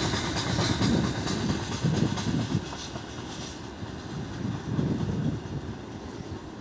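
Freight train of gondola cars rolling away, its wheels clattering over the rail joints. The clatter fades about halfway through as the end of the train draws off, leaving a faint, even rumble.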